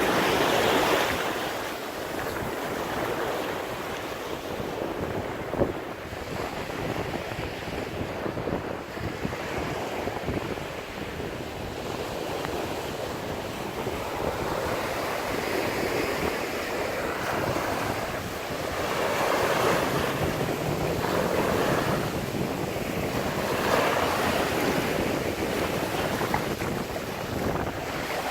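Ocean waves breaking in heavy surf, a continuous wash that swells and eases as each wave comes in, with wind buffeting the microphone.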